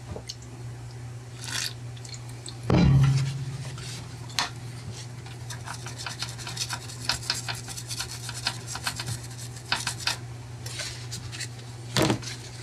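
Rapid scratching and scrubbing on a circuit board, cleaning a freshly soldered spot with brake cleaner, with one louder knock about three seconds in and a steady low hum underneath.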